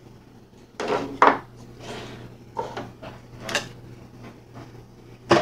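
Plastic parts of a portable K-cup coffee maker being set down and shifted on a wooden tabletop: a few light knocks and clatters, the loudest about a second in.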